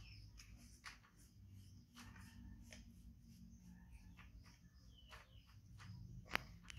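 Near silence: faint scattered clicks and ticks with a few small chirps, and one sharper click near the end.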